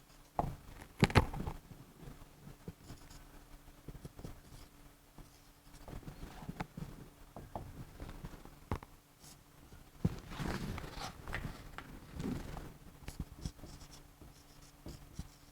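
Pen writing and drawing: scratchy strokes with scattered small taps and clicks, and a sharp knock about a second in.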